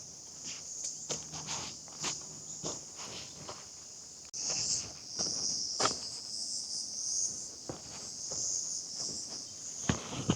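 A steady high-pitched chorus of insects, crickets among them, which grows suddenly louder about four seconds in. Footsteps of someone walking sound over it at a regular pace.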